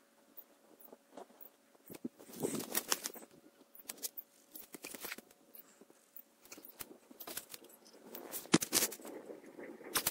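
German shepherd–border collie mix sniffing hard at the end of a metal pipe where a chipmunk is hiding, in irregular bursts, with scattered scuffs and clicks against the pipe and dirt.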